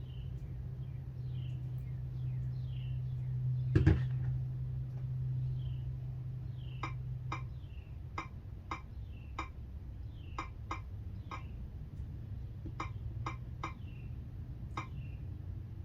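A steady low hum, a single knock a little under four seconds in, then a run of short light clicks at an uneven pace of about one or two a second. The clicks are typical of taps while working through a tablet's on-screen setup.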